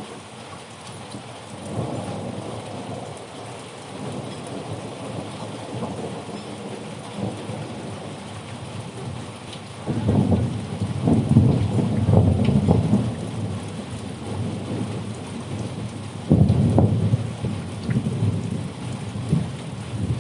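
Rain falling steadily with rolling thunder. The rumbles swell about two seconds in, grow loudest around the middle, and come again strongly near the end.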